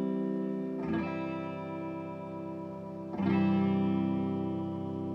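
Electric guitar played through a Fender Deluxe Reverb tube amp: chords are struck about a second in and again about three seconds in, and each is left to ring out and slowly fade.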